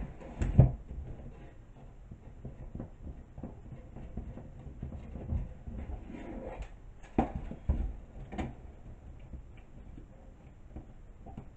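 Handling noise from a wooden-clothespin wreath on a wire frame being adjusted on a tabletop: scattered light clicks and rattles, with a few sharper knocks about half a second in and again around seven to eight and a half seconds in.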